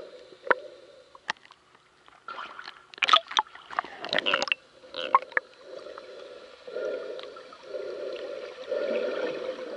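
Underwater sound picked up by an action camera in its waterproof housing: sharp clicks and knocks for the first few seconds, then water sloshing against the housing in surges about once a second.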